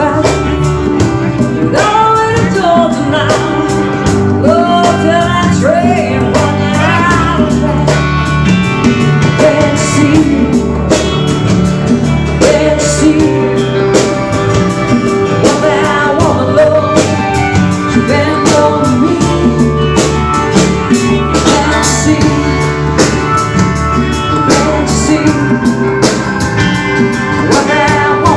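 Rock band playing an instrumental break over a steady drum beat, with bass and guitars and a lead line of bending notes that is most prominent in the first several seconds.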